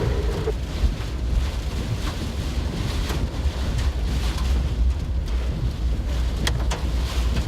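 Wind buffeting the microphone: a steady, heavy low rumble with a hiss above it and a few sharp ticks near the end. A steady tone cuts off about half a second in.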